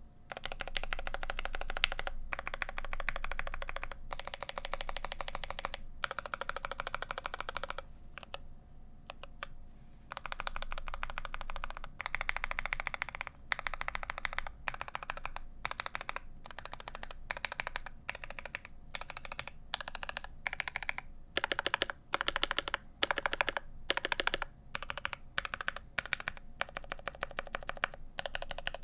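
Typing on a GMMK Pro mechanical keyboard with CannonKeys Lavender switches lubed with Krytox 205g0: fast runs of keystrokes with short pauses between them. About eight seconds in the typing goes softer for a couple of seconds, and later a string of louder, separate strokes stands out.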